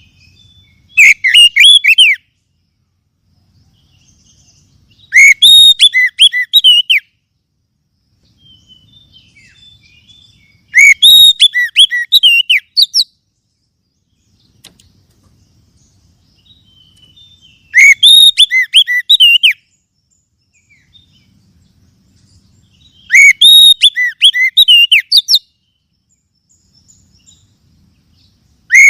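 Oriental magpie-robin (kacer) song played as a lure call: loud bursts of rapid sliding, chattering notes, each about two seconds long. Five bursts come about every five to six seconds with quiet pauses between, and a sixth begins right at the end.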